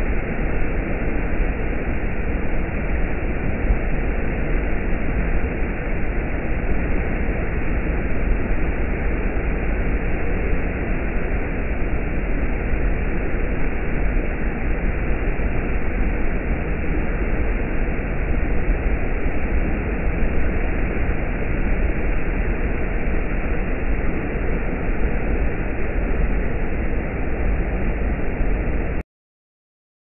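Waterfall's steady rush of water pouring over rock, deep and muffled with no hiss on top. It cuts off suddenly near the end.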